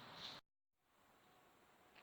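Faint steady background hiss that cuts off to dead silence for a moment about half a second in, as at an edit, then returns quieter with a few faint ticks.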